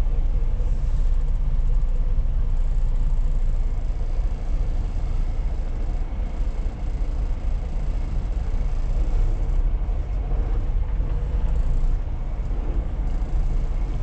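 Semi-truck's diesel engine running steadily, a low rumble heard from inside the cab.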